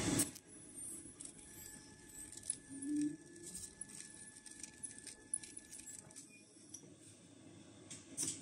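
Thin TPU plastic film crinkling faintly, with scattered small clicks, as it is handled and fed under a rotary ultrasonic sealing horn. A louder hiss cuts off just after the start, and a faint steady high tone runs through the middle.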